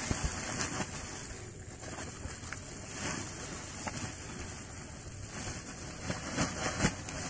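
Rustling and scraping of a sack being handled as a large reticulated python is pushed into it, over a steady rushing hiss.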